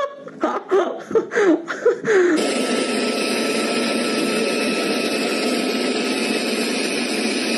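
A handheld leaf blower runs steadily at full speed, a constant air-blast roar that starts abruptly about two seconds in. Before it come a few short, wavering rising and falling cries.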